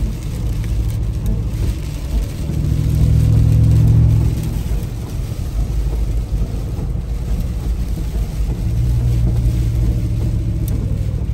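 Brabus Mercedes G-Class twin-turbo V8 running under way, heard from inside the cabin as a low, steady drone. It swells louder twice, about two to four seconds in and again near the end.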